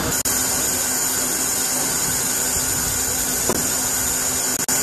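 Steady loud hiss of escaping steam from a standing DR class 35 steam locomotive.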